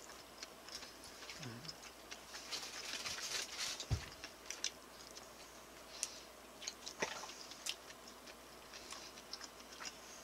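A person chewing stir-fried pork close to the microphone: a run of small wet mouth clicks and smacks, denser for a moment before a dull thump about four seconds in, and a sharper click near seven seconds.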